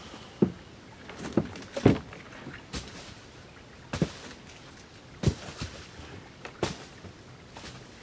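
A series of short knocks and taps, about nine in all, spaced irregularly about a second apart, the loudest about two seconds in.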